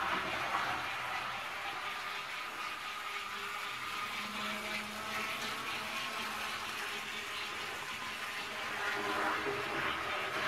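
Model 0-4-0 tank engine running at speed around the layout, its small electric motor, a replacement for one that had seized, whirring steadily as the locomotive and its freight cars roll along the track; the sound swells slightly near the start and again near the end.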